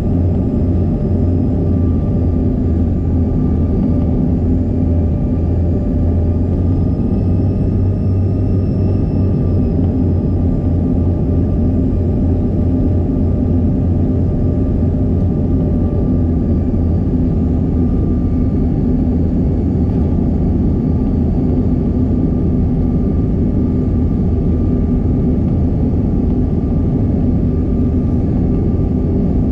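Cabin noise inside a CRJ200 regional jet on approach: a steady rumble of airflow and of the rear-mounted GE CF34 turbofans, with a constant engine whine. Fainter high tones rise slightly in pitch and settle back about a quarter of the way in.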